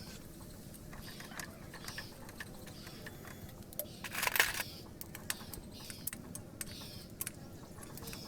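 Small clicks and light metallic taps of tools and parts being handled during work on a small engine, with one louder scraping rustle about four seconds in.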